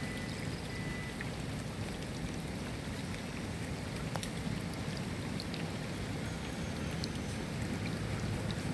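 Steady rain with a low rumble and scattered sharp ticks of single drops striking a surface.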